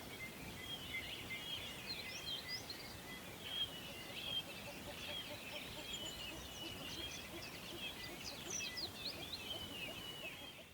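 Songbirds singing and chirping together in a dense chorus of short, high chirps and trills, over a steady low background rush. The chorus fades out at the very end.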